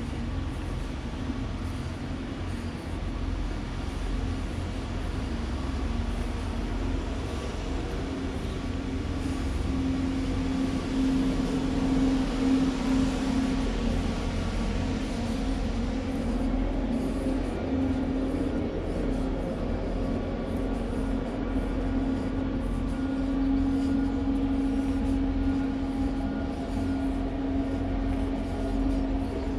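A vehicle running steadily, a constant humming tone over low rumbling noise.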